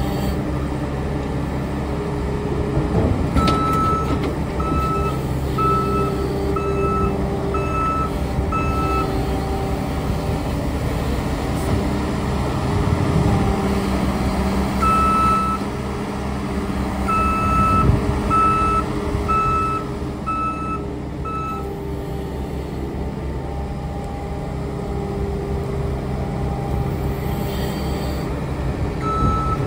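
New Holland 328 skid steer loader's diesel engine working hard, with its backup alarm beeping in runs of about one beep a second as it reverses. A few clunks from the loader bucket come through, one at about 3.5 s and a louder one at about 18 s.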